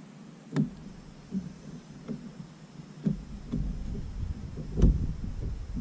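Irregular knocks and thumps against a plastic paddle boat's hull while a hooked bass is handled alongside it, about six in all, the loudest near the end. A low rumble sets in about halfway through.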